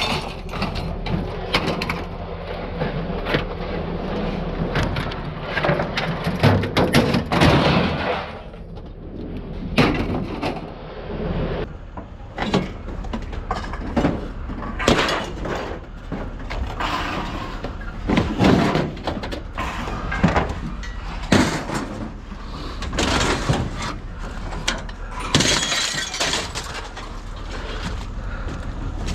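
Irregular, repeated crashes and clanks of scrap being thrown and dropped onto a pile, with metal and glass clattering and breaking.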